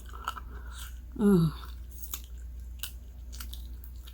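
Close-up chewing with short wet mouth clicks and smacks, as food is eaten on camera. A brief falling vocal sound comes about a second in. A low steady hum runs underneath.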